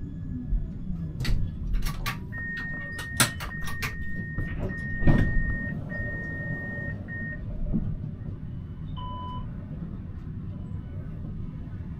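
Siemens Avenio tram's door-closing warning: a steady high beep in short broken stretches for about five seconds, with several sharp knocks as the doors shut, the loudest about five seconds in, over the tram's low hum. A short two-tone chime sounds about nine seconds in.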